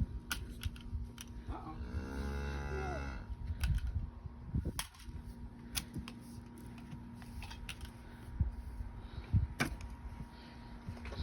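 A cow mooing once, a drawn-out call of about a second and a half, about two seconds in, with scattered clicks and knocks and a faint steady hum.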